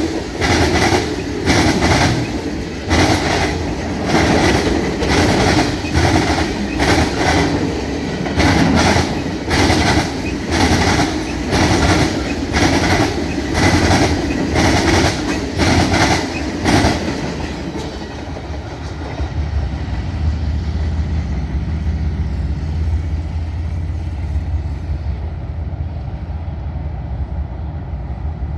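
Freight train wheels clattering over a jointed railroad diamond crossing, in a regular clickety-clack of about one beat a second. About two-thirds of the way through the clatter stops, leaving a low rumble.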